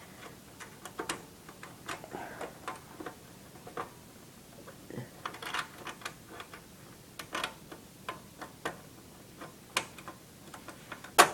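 Irregular small clicks and taps of a screw and screwdriver working against a computer case's metal fan mount while a case fan is screwed in, with one louder knock near the end.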